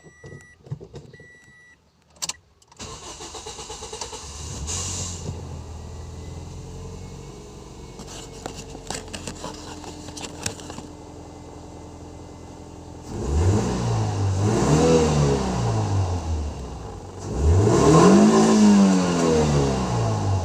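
A few short beeps, then the 2008 Toyota Vios's 2NZ four-cylinder engine starts about three seconds in and settles into a steady idle. It is being test-run after a wiring repair for a misfire. Near the end it is revved twice, the pitch rising and falling each time, and these are the loudest moments.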